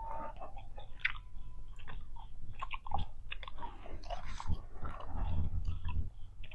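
Bubble gum (Big League Chew) being chewed: irregular wet smacks and clicks of the mouth working the gum.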